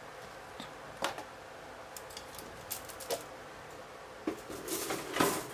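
Hard plastic model-kit runners clicking and clattering as they are handled and taken from the kit box: a few scattered clicks, then a louder cluster of clatter near the end.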